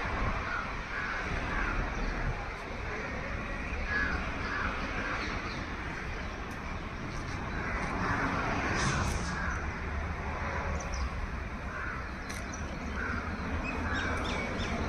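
Crows cawing, short calls in groups of two or three, repeated every few seconds over a steady low rumble.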